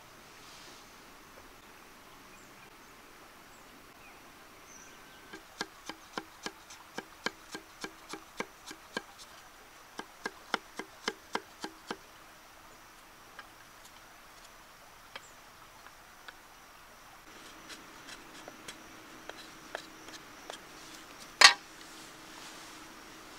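A run of sharp knocks of a tool on wood or bamboo, about three a second for some six seconds. Scattered lighter ticks follow, then one loud knock near the end. A faint steady insect buzz runs behind.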